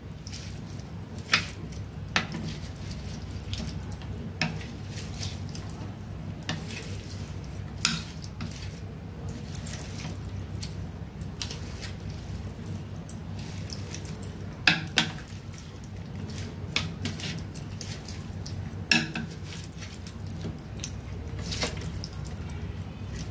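Wooden chopsticks mixing sliced meat on a plate, with scattered sharp clicks as they tap the plate, over a steady low hum.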